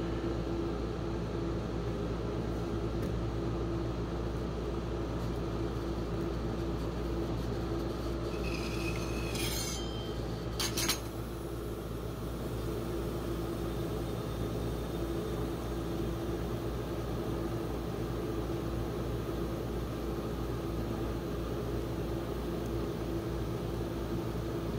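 Steady machine hum from the rolled-ice-cream cold plate's refrigeration unit running. About nine to eleven seconds in, the steel spatulas give a brief squeak and a sharp clink against the steel plate.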